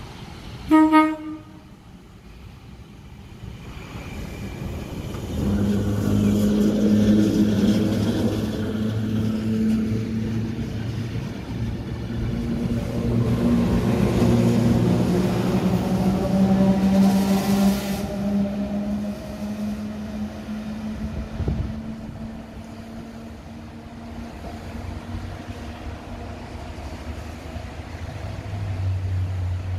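A vintage red passenger train gives a short horn blast about a second in. It then passes close by, rumbling over the rails with a steady motor hum that swells and then fades as it runs away.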